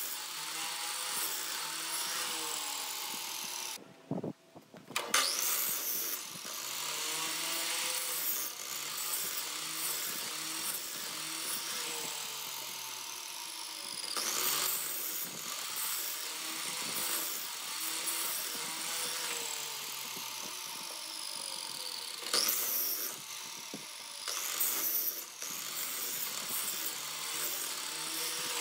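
Sliding miter saw motor spinning up with a rising whine several times, its blade cutting into a laminated wooden block, and winding down between cuts as a series of shallow kerfs is made to form a notch.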